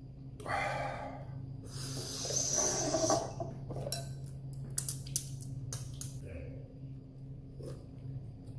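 A person breathing hard through the mouth, two long breaths in the first three seconds, from the burn of very spicy noodles. Then a run of light clicks and taps of a utensil and noodle cup against a bowl.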